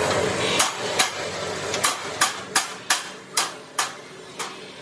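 Hand hammer striking the steel bumper plate and die of a bending press, about nine ringing metal blows at an uneven pace of two or three a second. A steady machine noise cuts off about half a second in, just before the first blow.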